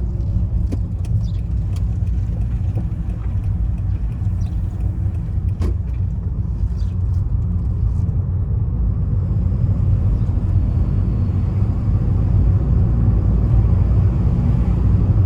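Steady road and tyre rumble of a ZVW30 Toyota Prius being driven with its windows open, with a few light clicks in the first half and one sharper click about six seconds in.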